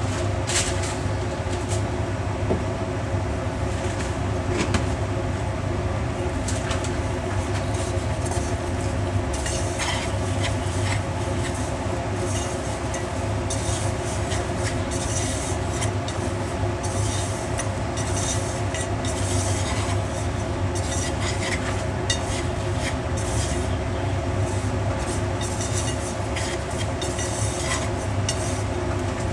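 Steady whirring hum from the stove as oil heats in a frying pan, with scattered light crackles of the hot oil that come more often from about ten seconds in.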